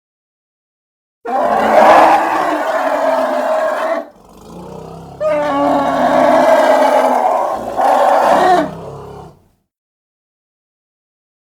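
Elephant calling: two loud, rough, pitched calls. The first starts about a second in and lasts about three seconds. After a short, quieter stretch, a longer second call follows and fades out about nine seconds in.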